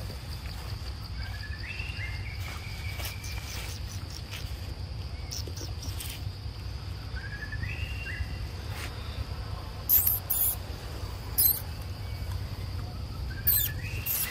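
Steady high insect drone, with a short rising whistled call repeated three times in the same pattern. From about ten seconds in come a few sharp, loud crackles of dry leaf litter as monkeys move over it.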